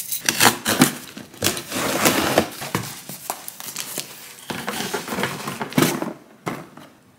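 Cardboard shipping box being opened and unpacked by hand: cardboard flaps scraping and rustling, with sharp clicks and knocks, dying down near the end.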